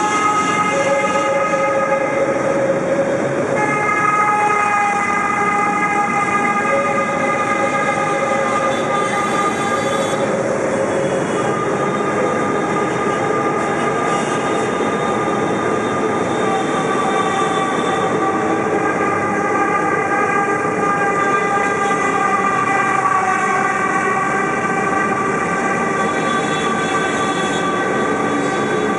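A column of motorcycles passing through a road tunnel, engines running, with horns held in long overlapping blasts at several pitches. The sound echoes off the tunnel walls.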